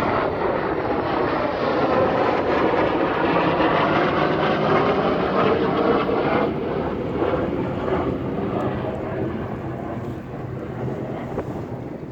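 Airplane flying past low, its engine noise a loud rush that holds for about six seconds and then slowly fades away.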